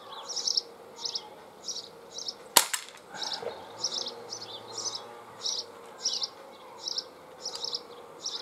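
A single shot from a Walther PPQ M2 CO2 blowback pellet pistol: one sharp crack about two and a half seconds in. Behind it, a high chirping repeats about twice a second.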